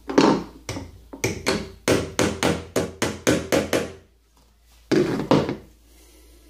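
A quick series of sharp knocks on a wardrobe's side panel, about four or five a second, with two more knocks after a short pause near the end. The knocks come as a shelf support is fitted into the row of holes in the panel.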